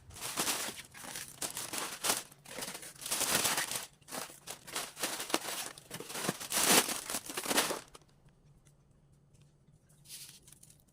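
Food packaging crinkling and rustling in repeated bursts as meal boxes are packed by hand, stopping about eight seconds in, with one brief rustle near the end.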